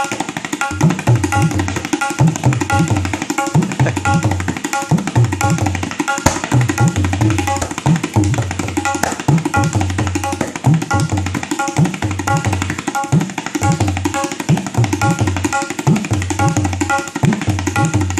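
Tabla pair played fast and without a break to imitate a running train, with the engine and the coaches behind it: a dense rolling patter of strokes on the treble drum, joined about a second in by repeated deep bass strokes on the bayan whose pitch bends up, in a steady chugging rhythm.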